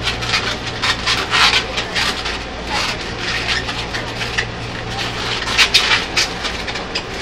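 Latex modelling balloons being twisted and rubbed against each other: an irregular run of rubbery squeaks and scrunches.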